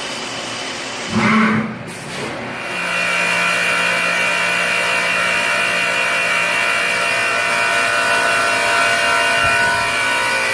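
Compressed-air blow gun hissing, stopping abruptly just under two seconds in; then the Fadal VMC4020HT CNC vertical mill runs with a steady whine of several fixed tones.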